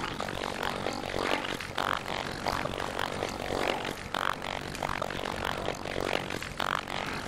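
Scissors cutting through craft paper: repeated snips, one or two a second, with the paper rustling between them.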